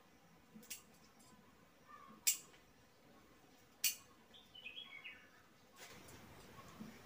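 Three sharp snips of hand pruning shears cutting shrub stems, about a second and a half apart. A small bird chirps a short phrase that steps down in pitch after the third snip, and a soft hiss comes in near the end.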